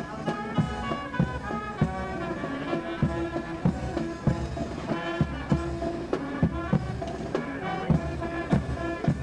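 Brass band music with a steady, sharp beat.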